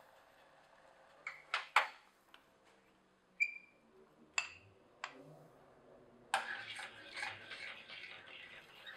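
A few sharp clicks as the portable gas burner is turned off. Then a glass bowl clinks once with a short ring, followed by a couple of taps. From about six seconds in there is a stretch of rustling and splashing as tapioca starch slurry is poured from the glass bowl into a stainless steel saucepan of hot sweet potato water.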